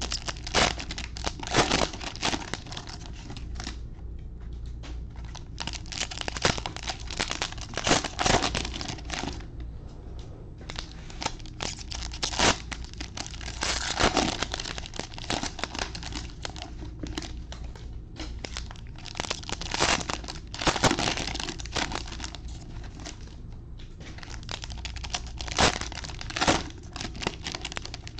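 Cellophane-wrapped Panini Prizm football card packs being torn open and crinkled by hand. The crackling rips and crinkles come in repeated bursts with short pauses between them, as one pack after another is opened.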